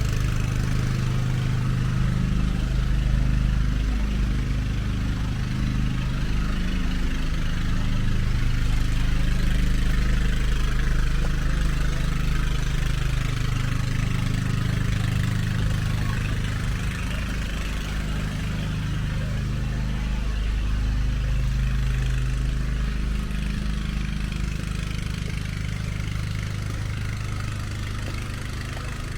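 Motor vehicle engines running: a low hum whose pitch shifts every few seconds, over a steady rushing hiss.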